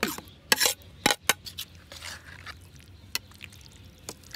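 Dishes and kitchen utensils being handled: a string of irregular sharp clinks and knocks, the loudest in the first second or so.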